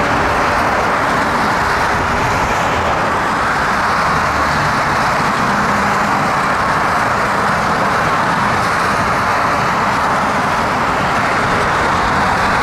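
Steady rolling noise of electric passenger trains passing on the tracks, blended with road traffic hum, with no horn or separate clanks standing out.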